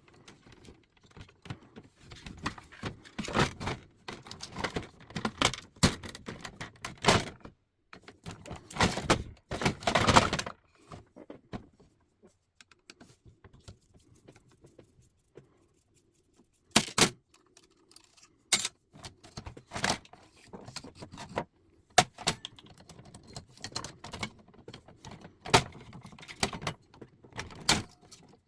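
Metal parts of an old mechanical typewriter clicking, clinking and rattling as it is taken apart, in irregular bursts, with a quiet stretch of a few seconds midway.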